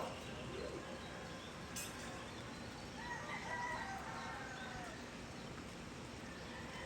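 A rooster crowing once, faintly, for about two seconds starting about three seconds in, over a steady background hiss.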